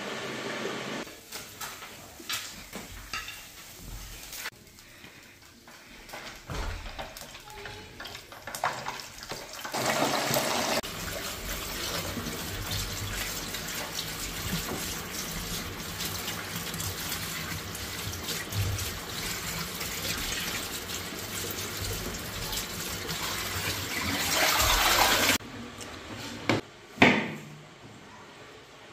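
Kitchen tap running onto peeled garden eggs in a plastic colander in the sink as they are rubbed and rinsed by hand. The water starts about a third of the way in and stops abruptly near the end, followed by a few sharp knocks of a knife on a wooden cutting board.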